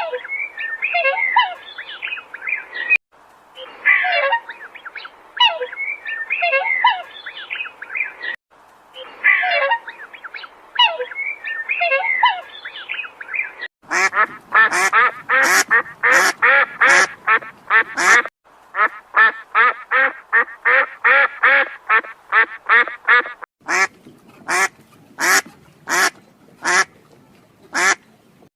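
Chickens clucking and squawking. About halfway through, this gives way to ducks quacking in fast runs of repeated calls.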